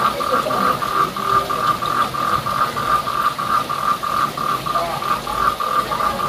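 A frog croaking in a fast, even series of short pulses, about four a second, keeping the same pitch without a break.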